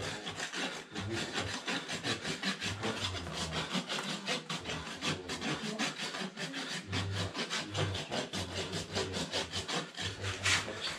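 Farrier's hoof rasp filing a horse's hoof in quick, repeated back-and-forth strokes.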